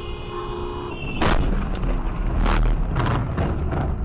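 Car collision heard from inside the car through a dashcam microphone. A steady pitched tone sounds for about a second, then a loud bang of impact, a second heavy bang about a second later and a few smaller knocks.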